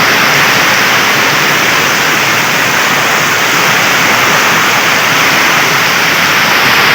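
Heavy rain pouring down steadily in a windy storm, a loud even hiss.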